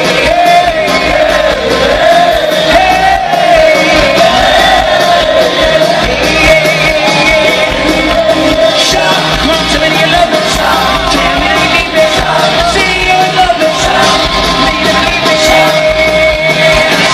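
A rock band playing live, with the lead singer singing over electric guitars and drums.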